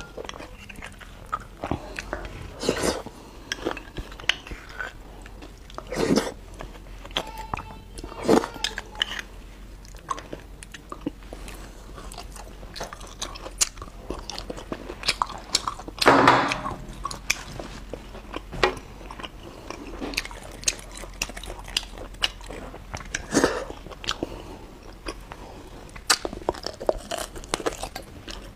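Close-miked eating of braised beef bone marrow: steady wet chewing and lip-smacking, with about five louder bursts as marrow is sucked and scooped from the bones.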